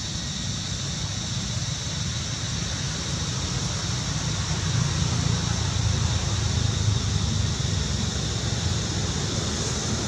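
Steady outdoor background noise: a low, fluctuating rumble like wind buffeting the microphone under a steady high hiss, with no distinct calls or knocks.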